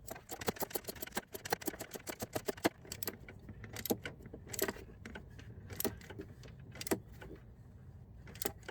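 Ratchet wrench clicking as the nut securing the short shifter to the gearbox selector shaft is tightened: a rapid run of clicks for about three seconds, then a few scattered metallic clicks.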